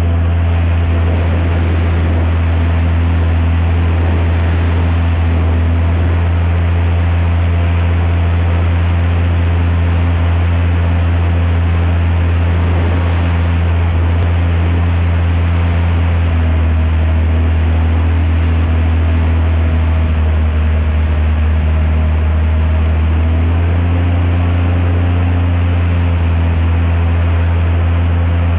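Airboat's Lycoming aircraft engine and propeller running steadily under way, a loud continuous drone with a rushing hiss. The engine note dips slightly a little past halfway and comes back up near the end.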